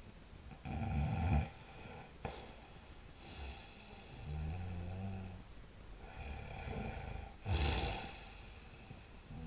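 A sleeping person snoring: two loud snores, about a second in and near the end, with softer, lower pitched snores between them.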